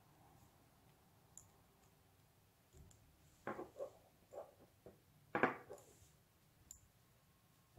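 Paracord strands rubbing and sliding against each other as a knot is worked, heard as several short, faint scraping rustles in the middle, the loudest about five and a half seconds in. A few faint high ticks come now and then.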